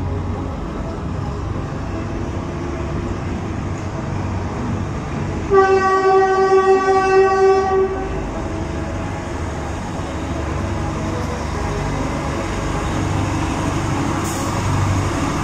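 Adif class 311 diesel shunting locomotive passing with a train of empty flat wagons, its engine and wheels giving a steady low running sound. About five and a half seconds in, a horn sounds one steady note for about two and a half seconds.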